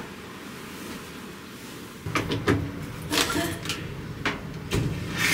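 Plastic clacks and knocks of a top-loading washing machine being handled at its lid and detergent tray. They come as a quick string of sharp knocks starting about two seconds in, over a low steady background.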